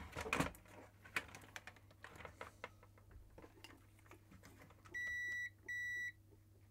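Multimeter continuity beeper sounding twice, two short steady beeps about half a second each, as the test probes touch the power jack, showing that the outside connection goes to ground. Faint clicks of the probes and board handling come before the beeps.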